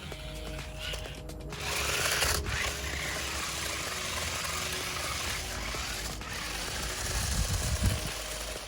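Background music with a small electric motor whirring at high speed, from about one and a half seconds in until near the end: the drive motors of a remote-control stunt car. Low rumbling joins in toward the end.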